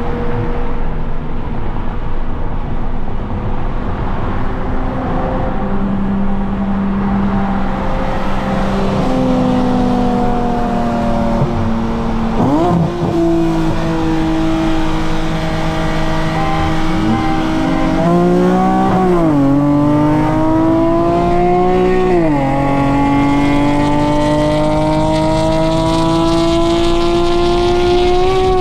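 Infiniti Q60's twin-turbo V6 running steadily at first, then revving up and pulling hard through the gears, its pitch climbing and breaking at each upshift, with a drop in revs at the very end.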